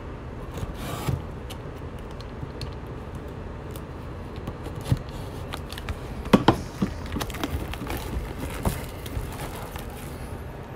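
A utility knife slitting and the shrink wrap being pulled off a cardboard hockey card hobby box, with scattered scrapes, rubs and small clicks as the box is handled and turned. A few sharper clicks come about six seconds in.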